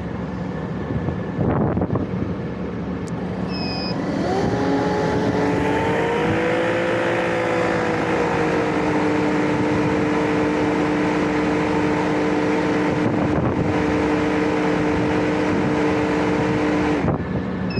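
Refrigerant recovery machine running its self-purge cycle to clear the leftover refrigerant out of its hoses and the machine. Its motor starts about four seconds in with a whine that rises briefly and then holds steady, and stops suddenly near the end.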